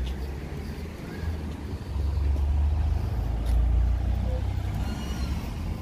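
Single-deck bus driving round a corner close by, its engine a low rumble that swells about two seconds in and stays loud for a couple of seconds.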